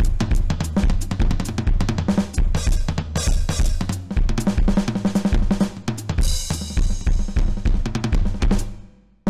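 Donner DED-200 Lite electronic drum kit played fast and busy, its kick, snare, tom and cymbal sounds coming from the kit's sound module. Cymbal crashes ring about three seconds in and again around six to seven seconds. The sound fades away shortly before the end.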